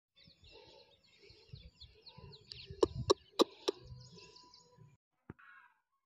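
Small birds chirping with a low rumble of wind or handling, and four sharp clicks in a quick even row about three times a second near the middle, the loudest sounds. The sound cuts off about a second before the end.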